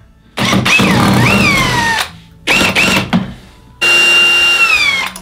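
Cordless drill running in three goes on a toy car's outboard bracket. First a long run from about half a second in, its whine rising then falling as the trigger is eased. Then two short blips near the middle, and a steady high whine from about four seconds in that winds down at the end.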